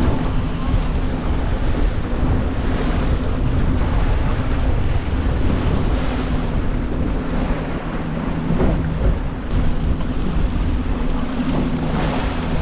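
A boat running at steady speed: its engine hums evenly beneath wind buffeting the microphone and water rushing past the hull.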